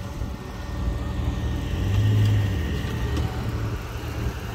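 Off-road 4x4's engine running low and steady, swelling briefly in level about two seconds in.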